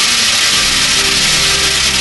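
A continuous stream of metal BBs pouring onto a tin can, so many that the strikes merge into a dense, steady rattling hiss. Low, sustained music comes in underneath about half a second in.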